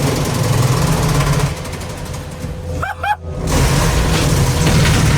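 Compact skid-steer loader's engine running hard under load while it tears into a car, with metal crunching and scraping. Two short rising squeals come about three seconds in, followed by a brief dip in the sound.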